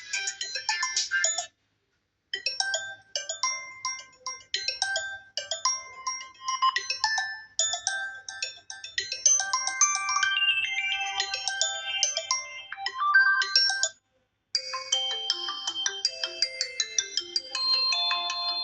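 Electronic phone ringtones play one after another: melodies of short, clear beeping notes. A brief silent break about two seconds in and another near fourteen seconds mark the change from one tune to the next.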